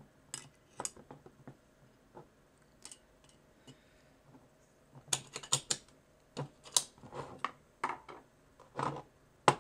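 Metal clicks and clacks of a CZ-52 pistol's slide and parts being handled during reassembly. They come in scattered groups, busiest in the second half, with one sharp click near the end.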